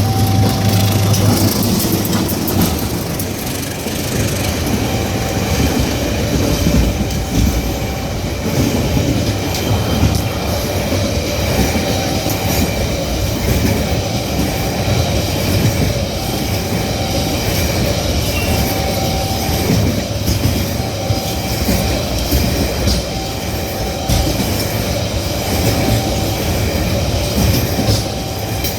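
Rail inspection car running on the track: a steady rumble of wheels on rails with frequent clattering clicks. A faint short beep recurs every few seconds.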